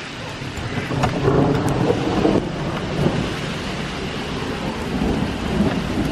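Steady rain falling, with a low rumble of thunder that swells about a second in and rolls on for a few seconds before easing.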